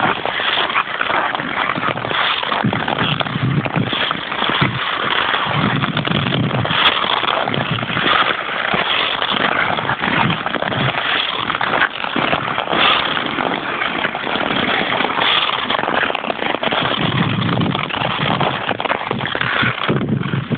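Ice skate blades scraping and crackling over rough natural canal ice as the skaters glide and push off, a continuous gritty hiss with many small clicks.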